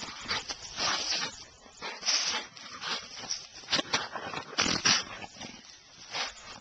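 American Staffordshire terrier working at a mouse burrow, making irregular short, breathy bursts of noise.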